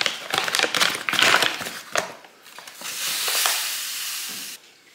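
A plastic bag of white sugar crinkling as it is opened and handled. Then granulated sugar pours from the bag into a glass measuring cup with a steady hiss, which stops abruptly near the end.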